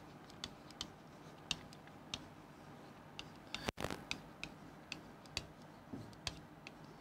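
Faint, irregular clicks and taps of a pen tip striking an interactive whiteboard's screen while a line of an equation is written, about two or three a second, the busiest stretch a little past the middle.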